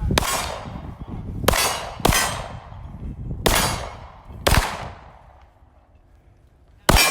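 Six pistol shots fired slowly and deliberately, a second or more apart, each sharp report trailing off in a ringing echo.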